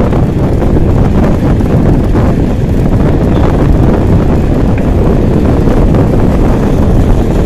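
Steady, loud wind rumble buffeting the camera microphone as a mountain bike is ridden along.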